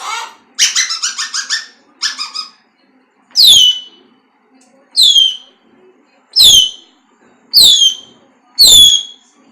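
Pet parrot chattering in a quick burst, then giving five loud, sharply downward-sliding whistled squawks about a second and a half apart.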